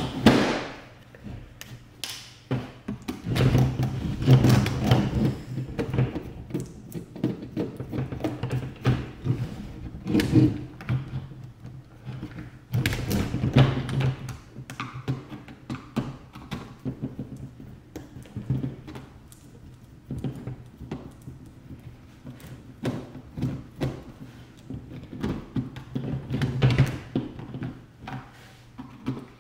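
A small hand screwdriver working the screws and nuts out of a gel blaster's plastic motor housing. It makes irregular clicks, scrapes and light knocks as the tool and the blaster are handled, with several louder spells of knocking.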